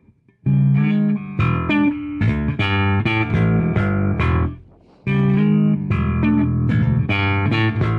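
Background music of plucked guitar over a bass line. It drops out briefly about two-thirds of the way through.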